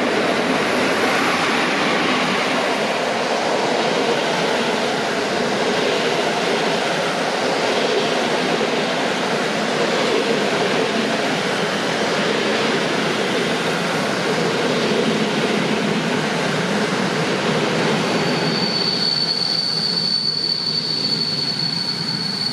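Train running on the rails: a steady, loud rolling rush. About three quarters of the way through, a steady high-pitched squeal starts and holds.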